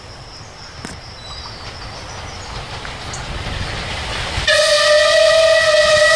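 Steam locomotive approaching with a rising rumble, then one long whistle blast on a single steady pitch about four and a half seconds in.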